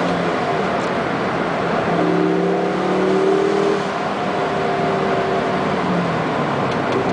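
Car driving through a road tunnel, heard from inside the cabin: steady engine and tyre noise, with the engine note climbing briefly a couple of seconds in as it accelerates.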